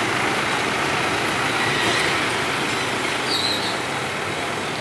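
Road traffic crossing the tracks at a railway level crossing: a light box truck and motorbikes, heard as a steady run of engine and tyre noise. About three seconds in comes a short high squeal, the start of the approaching train's wheels squealing.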